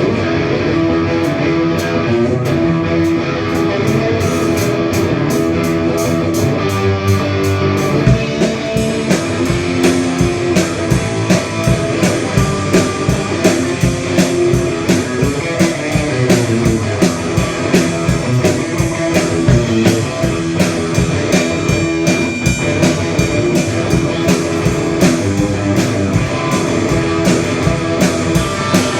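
Live rock band playing at a sound check: electric guitar, with a drum kit coming in about eight seconds in and keeping a steady beat.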